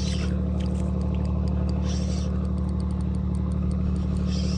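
A motor running steadily with a constant low hum, and a short hiss coming back about every two seconds.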